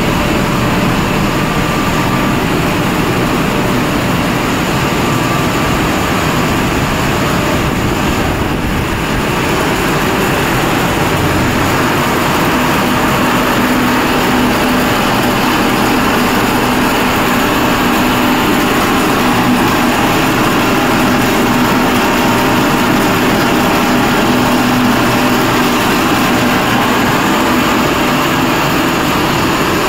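Steady, loud machinery noise of a snack-pellet extrusion line running: motors, fans and conveyors together, with a constant hum under an even rushing noise.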